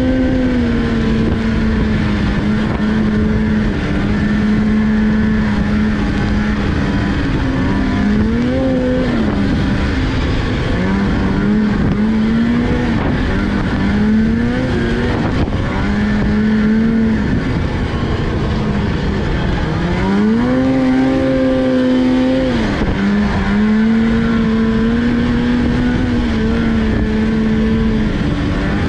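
Polaris Indy snowmobile's two-stroke engine running under way, its pitch rising and falling with the throttle. The revs climb about twenty seconds in, hold high for a couple of seconds, then drop back. A steady low rushing noise runs underneath.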